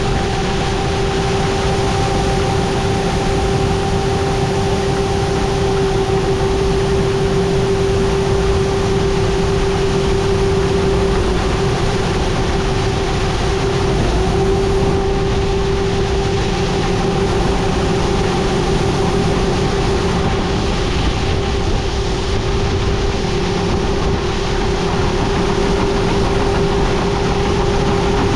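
Engine of an old farm vehicle running steadily, a constant whine over a low rumble.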